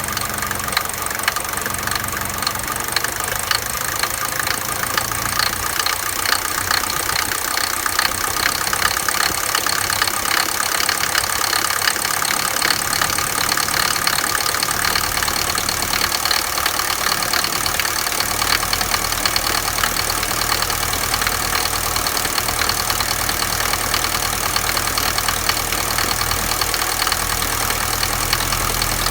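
Mercedes-Benz W124 200D four-cylinder diesel engine idling with a steady, rhythmic knock from an unknown cause, a knock that goes away when the engine is accelerated.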